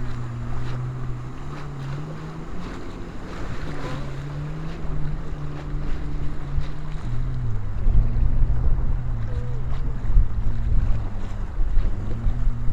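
A boat engine running steadily, its pitch shifting a little up and down, with a drop to a lower note about seven seconds in. Wind buffets the microphone throughout.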